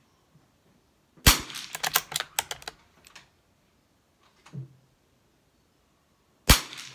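Two sharp shots from a Brno Model 4 .22 rimfire bolt-action rifle, about a second in and near the end. The first is followed by a quick run of clicks from the bolt being cycled.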